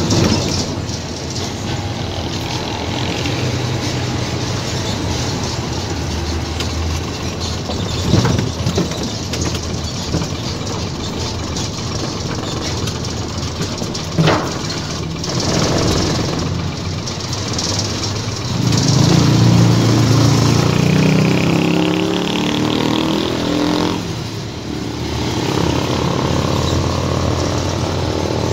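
Isuzu GXZ truck's diesel engine heard from inside the cab, running steadily under road noise. There are two sharp clunks, about 8 and 14 seconds in, the second as the gear lever is worked. Then the engine note rises as the truck accelerates, loudest for several seconds past the middle, before settling to a steady run.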